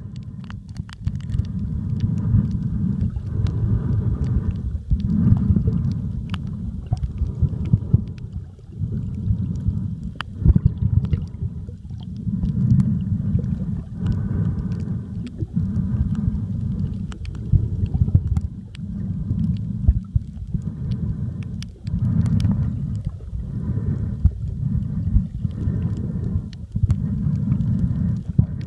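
Underwater sound picked up by a camera held below the surface: a low rumble of water moving around the camera, swelling and easing every second or two, with scattered sharp clicks.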